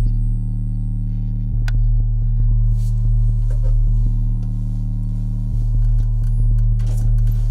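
Low, sustained drone music made of several deep held tones, with a short high ping about two seconds in.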